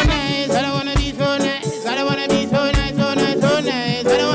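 Live reggae band playing, with a man singing into a microphone over electric guitar and drums.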